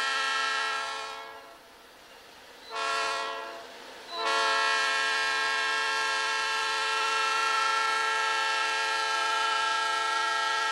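Diesel locomotive's multi-chime air horn blowing for a grade crossing: a long blast ending about a second in, a short blast near three seconds, then a long blast held for the rest.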